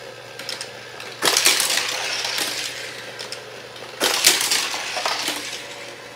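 Die-cast toy car clattering along a plastic toy race track, in two loud rattling bursts about three seconds apart, each fading over about a second.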